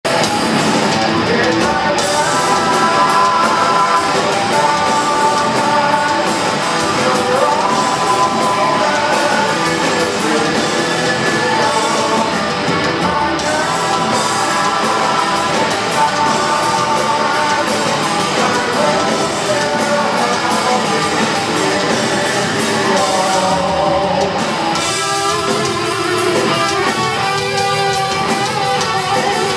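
Live heavy metal band playing, recorded from within the crowd: distorted electric guitar with a male lead vocal sung over it.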